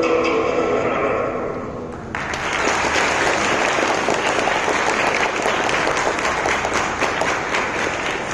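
The dance music's final held note fades away. About two seconds in, an audience suddenly breaks into applause, which keeps going steadily.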